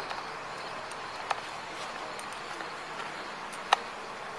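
Steady outdoor street hiss with two short sharp clicks, one about a second in and a louder one near the end.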